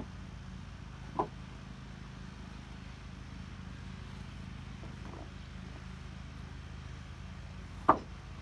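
A steady low machine hum, with three sharp knocks over it: one about a second in, a fainter one around five seconds, and the loudest near the end.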